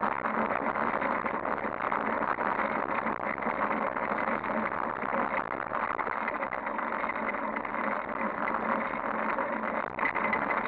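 Steady wind and road noise from a moving bicycle, heard through a camera mounted on its handlebars: tyre noise on the asphalt, wind over the microphone, and faint rattles from the rough pavement.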